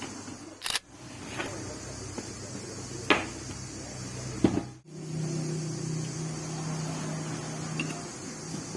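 An electric stand fan's motor humming steadily, with a few sharp knocks during the first half. About five seconds in the hum cuts out for a moment, then returns louder and a little higher.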